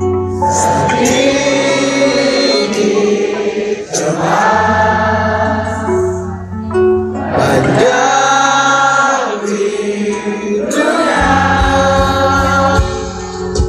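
Live band music with singing, heard from within the concert crowd: long sung phrases over guitar and a steady bass line.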